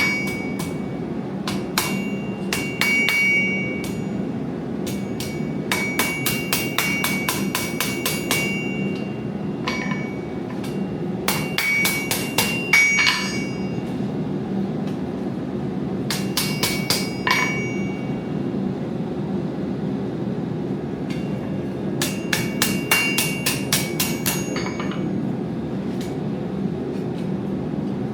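Hand hammer forging metal: runs of quick blows, about four a second, each with a bright ringing tone, broken by pauses of a few seconds, over a steady low hum.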